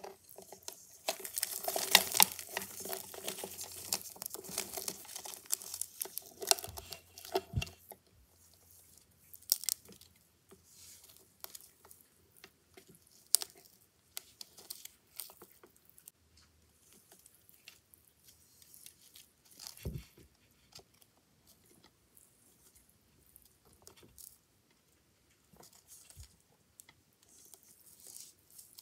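Crackling and crunching of a praying mantis's body and wings as a Brazilian whiteknee tarantula grips and bites into it. Dense crackling for the first several seconds, then scattered clicks and crunches.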